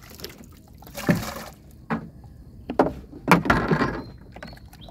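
Several irregular splashes and knocks in shallow water, roughly a second apart, the loudest near the end.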